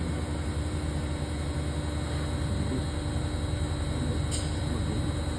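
Six-spindle woodworking moulder running with its cutter heads spinning up to speed: a steady machine hum with a constant tone. A brief click about four seconds in.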